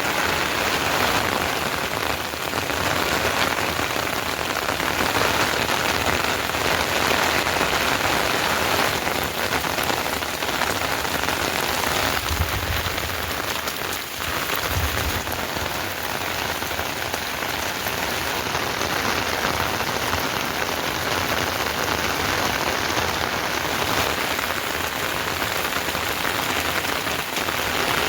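Steady rain falling and pattering on surfaces, with a couple of brief low rumbles about halfway through.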